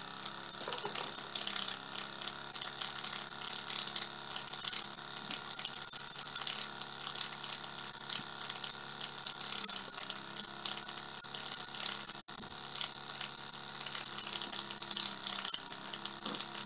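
Small homemade single-cylinder vertical model steam engine (5/16-inch bore and stroke, D-valve) running steadily on steam from its vertical boiler: light, fast mechanical ticking over a steady high-pitched hiss.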